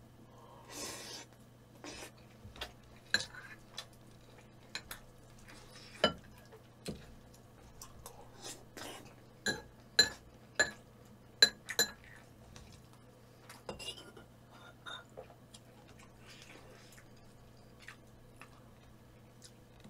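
Metal spoon clinking and scraping against a bowl, rice being mixed into leftover cheonggukjang (fermented soybean stew) broth. There are irregular sharp clinks, some ringing briefly, and they are loudest and most frequent midway.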